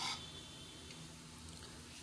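Quiet room tone with a faint steady hum, and a brief soft breath-like noise at the very start.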